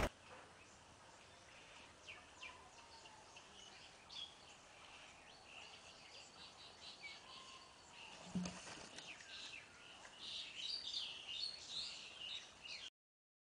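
Small birds chirping over faint outdoor ambience, the chirps busier near the end. About eight seconds in there is a single dull thump.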